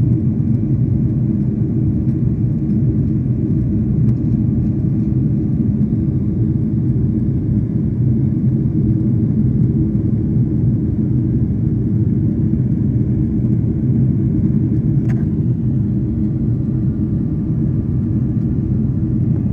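Steady low rumble of jet airliner cabin noise in flight: engine and airflow noise heard from inside the cabin.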